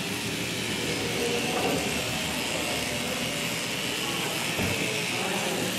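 Steady background noise of a busy hall, with faint, indistinct voices in the distance.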